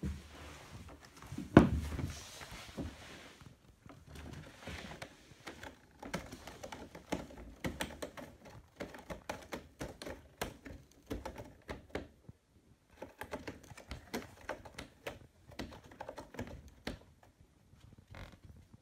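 A cat's claws scratching and scrabbling on cardboard inside a cardboard cat house: a long run of quick, dry clicks with short pauses. A single loud thump comes about a second and a half in.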